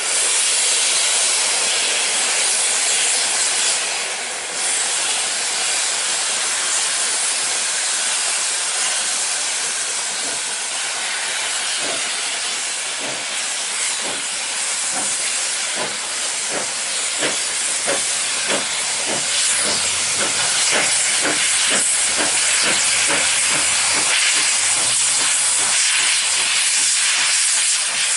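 An 1861 Robert Stephenson & Co. steam locomotive starting away, with a loud continuous hiss of steam. From about halfway its exhaust beats come through as regular chuffs that quicken as it gathers speed.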